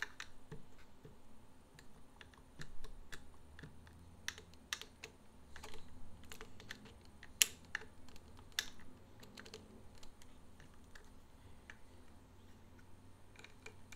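Screwdriver turning the mounting screws of a Singer 15-91 potted motor: light, irregular metal clicks and ticks as the tip turns and resets in the screw slots, with one sharper click about halfway through.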